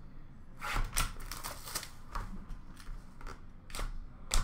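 A utility knife slitting the wrap and seal of a small cardboard hockey card box, with the box being handled: a series of short, sharp scratching and scraping strokes, the loudest near the end.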